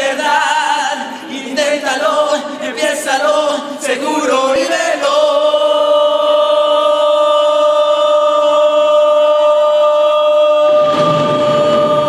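A man singing through a microphone, unaccompanied at first, then holding one long steady note from about five seconds in. A backing track with bass and drums comes in under the held note near the end.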